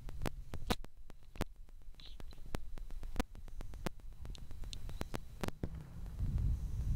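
Metal chain links and harness clips clicking and clinking in a string of sharp, irregular clicks as a dog cart's pull chain is clipped to the harness, a few clinks ringing briefly, over a low rumble.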